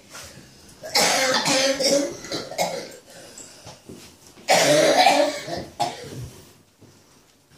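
A person coughing in two loud bursts, one about a second in and another about halfway through.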